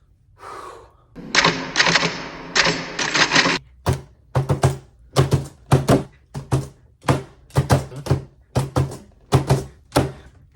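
Typewriter keys struck hard: a fast clatter of keystrokes for about two seconds, then a steady run of separate heavy keystrokes, each with a thunk, a little more than two a second.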